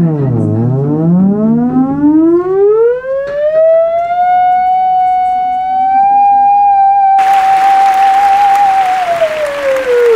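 Theremin played with slow sweeping glides: a single tone with rich overtones dips to a low pitch about half a second in, rises slowly for about three seconds, holds a high pitch for several seconds, then falls again near the end.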